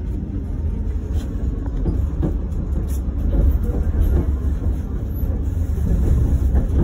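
Tatra T6B5SU tram running, heard from inside the passenger compartment: a steady low rumble of wheels on rails and running gear with a few short knocks, slowly getting louder.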